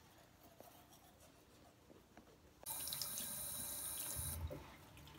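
Bathroom sink mixer tap turned on, water running from the spout onto hands being rinsed. It starts abruptly about halfway through, runs for under two seconds and then shuts off.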